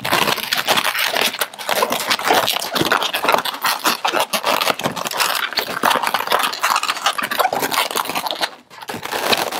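Inflated latex 260 twisting balloons rubbing and squeaking against each other in a busy crackle as yellow balloon bubbles are pushed through a red balloon loop, dipping briefly near the end.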